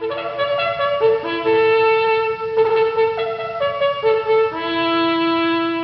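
Short passage of brass music, trumpet-led, moving through a few held notes and ending on a long final note that fades out near the end.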